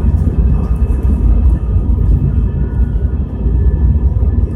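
Airbus A319-111's CFM56 turbofan engines at takeoff thrust, heard from inside the cabin during the takeoff roll: a loud, steady rumble with faint high engine tones above it.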